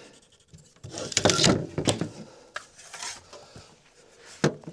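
Wooden boards being handled: a stretch of scraping and sliding, then a few sharp knocks of lumber against lumber.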